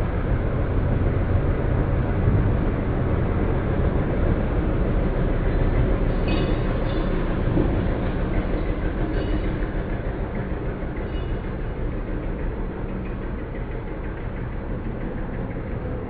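A loud low rumble that builds over the first couple of seconds and slowly fades, with a few brief high chirps about six, nine and eleven seconds in.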